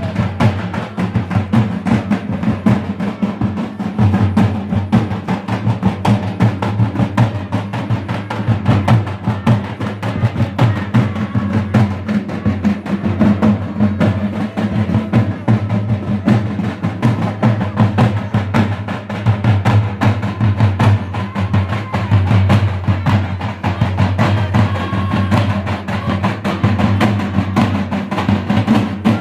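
Large steel-shelled barrel drums beaten with sticks in a fast, unbroken rhythm, with deep strokes.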